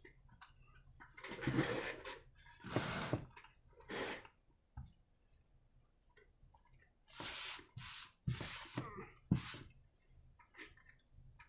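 A cloth rag rubbing and rustling in several short bursts as a small carburetor and the hands holding it are wiped off, with a few light knocks from the carburetor being handled.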